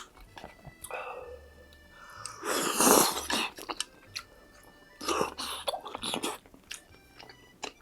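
Close-miked chewing and wet mouth sounds of someone eating tteokbokki, with scattered sharp clicks and a louder noisy burst about two and a half seconds in, and another cluster about five seconds in. Soft background music runs underneath.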